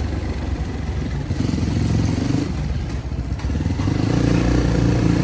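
Motorcycle engine running while riding, its note easing off briefly a little past halfway and then building up stronger again.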